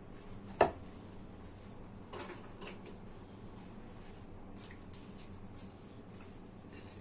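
Kitchen handling sounds: a sharp clack about half a second in, then a few lighter knocks and clicks of cookware being moved, over a faint steady hum.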